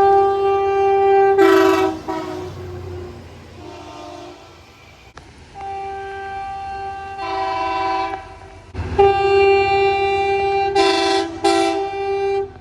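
Train horn sounding a multi-note chord in several blasts: a long blast at the start, a short faint one, then two more long blasts, the last broken by short gaps near the end.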